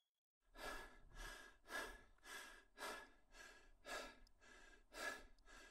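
Faint, quick human breathing, one short breath about every half second, the hurried breathing of a person under stress.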